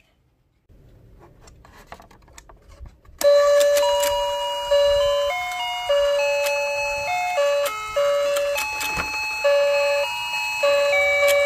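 Battery-powered toy fishing game running: faint clicking for about the first three seconds, then its electronic tune of beeping, chime-like notes starts up and plays on.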